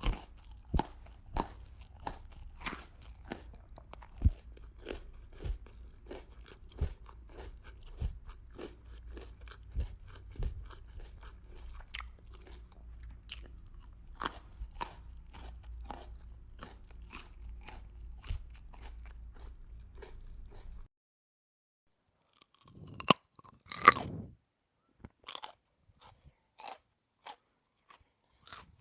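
A person chewing crunchy food close to the microphone, about two crunches a second over a low hum. It cuts off about three quarters of the way through, and after a short silence there is one loud crunching bite, then slower, sparser chewing.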